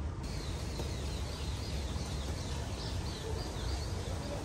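Small birds chirping over and over in short, high calls, over a steady low background rumble.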